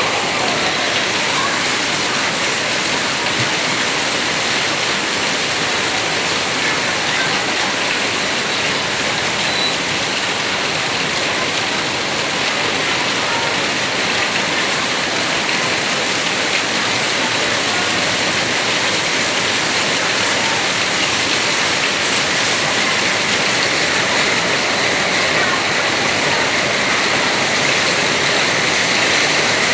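Heavy rain pouring down in a storm: a loud, dense, even hiss that holds steady.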